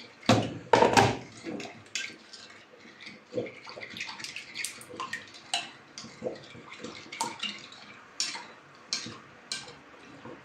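A spoon stirring a thick yogurt-based sauce in a ceramic bowl, with repeated irregular clinks and scrapes against the bowl. A couple of louder knocks about a second in as an electric kettle is set down on the counter.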